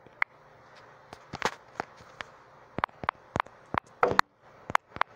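Finger taps on a smartphone touchscreen while typing on the on-screen keyboard: irregular sharp clicks, about fifteen in all, with a brief scuffing noise about four seconds in.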